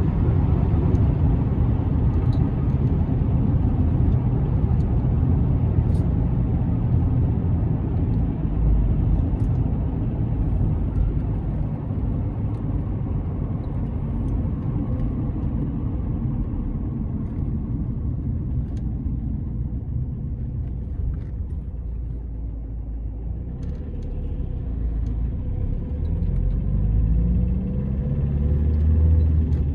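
A car driving on the road, with a steady low rumble of tyres and engine that eases a little past the middle. Near the end an engine note rises as the car speeds up.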